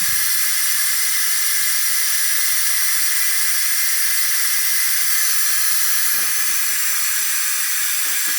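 Steady, loud hiss of an air-powered fuel extractor sucking stale gas out of a riding mower's fuel tank through a tube.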